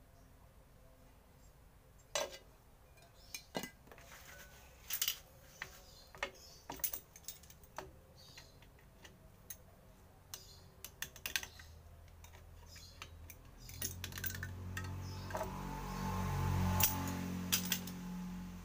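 Scattered clicks and metallic clinks of hand tools and small brake parts being handled while brake shoes are fitted to a rear drum brake, with pliers working at the backing plate. Over the last few seconds a louder, steady rumbling noise builds up and then drops away.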